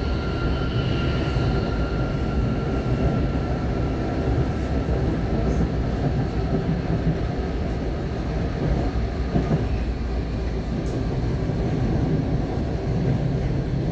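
Interior of a Berlin M5 tram running between stops: steady rolling and running noise, with a faint high whine that fades away over the first several seconds.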